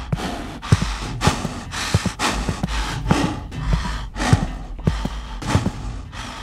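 Heavy, rhythmic breathing through a Michael Myers rubber mask, a loud breath roughly every two-thirds of a second.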